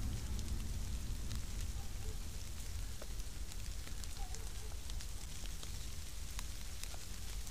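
Light rain pattering on fallen leaves and dry grass, with scattered single drops ticking here and there, over a steady low rumble.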